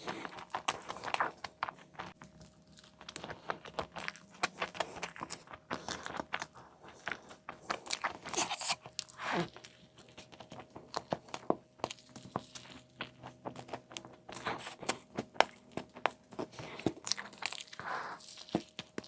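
Close-miked eating: crunchy bites into a crispy fried chicken burger, followed by wet chewing, with many irregular sharp crackles.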